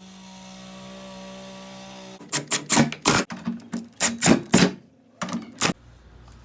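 A steady hum, then a quick irregular run of about eight loud, sharp tool strikes or bursts over three seconds or so, stopping a little before the end.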